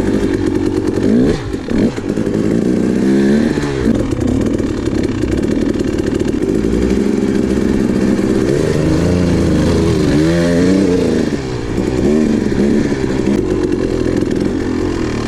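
Dirt bike engine running under riding load, its pitch rising and falling again and again as the throttle opens and closes. It dips briefly as the throttle shuts about a second and a half in and again near eleven and a half seconds.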